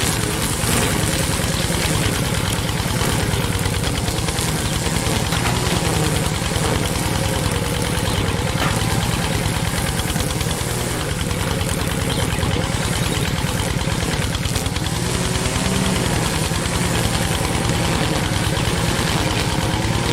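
Tractor engine running steadily at idle, with a fast, even thumping.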